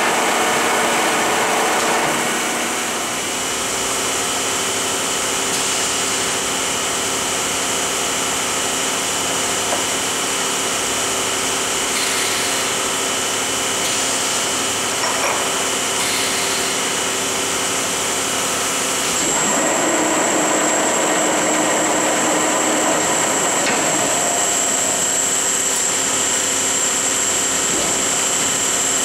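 1969 Lucas 441B-72 horizontal boring mill running, a steady machine hum with several fixed whining tones. About two-thirds in, a higher whine and a rushing noise join as the power tool lock draws a tool holder into the spindle.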